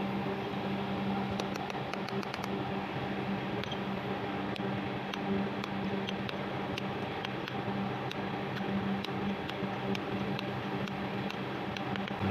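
Light, sharp taps, irregular at roughly two a second, as a new 16008 ball bearing is driven down onto a worm wheel's shaft with a drift. A steady low hum runs underneath.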